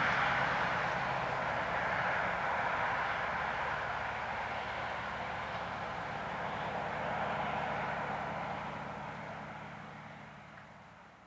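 Scania R500 truck's V8 diesel engine pulling away under load, a steady drone that swells slightly about seven seconds in and then fades as the truck moves off into the distance.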